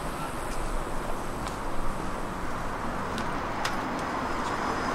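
Street ambience with road traffic: a steady wash of passing car noise, with a few faint sharp clicks.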